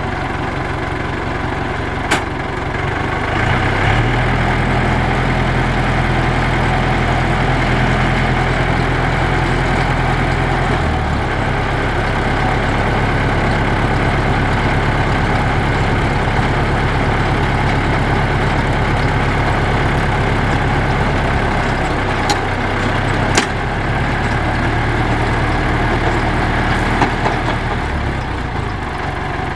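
Yanmar EF725T tractor's diesel engine running steadily while driving a mini round baler through its PTO, its note shifting a few times. A few sharp clicks from the machinery stand out over the running.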